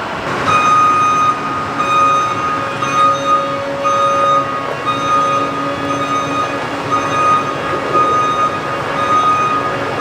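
Self-propelled crop sprayer's engine running while its backup alarm beeps repeatedly, about once a second, as the machine reverses.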